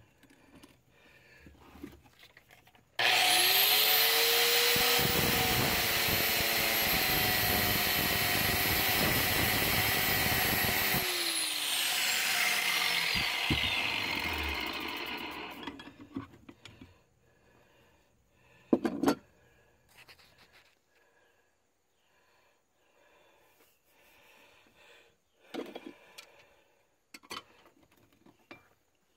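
Large angle grinder with a thin cut-off wheel spinning up with a rising whine, then cutting through the steel of an old axe head clamped in a vise for about six seconds. It is switched off about eleven seconds in and winds down with a long falling whine. Later come a few sharp metal clicks and knocks.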